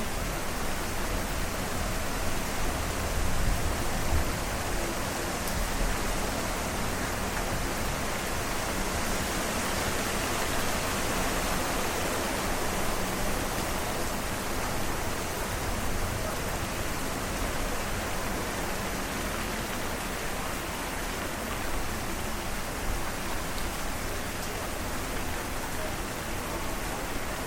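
Heavy storm rain pouring steadily: a dense, even hiss, a little louder a few seconds in.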